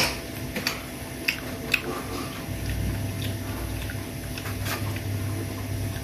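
Knife cutting into a firm unripe mango: a handful of sharp, crisp clicks spaced irregularly, over a low steady hum.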